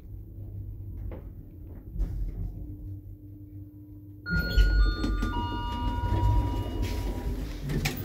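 Passenger lift running with a low hum. About four seconds in, a three-note arrival chime sounds, each note lower than the last, and the automatic sliding doors open with a mechanical rumble and clicks.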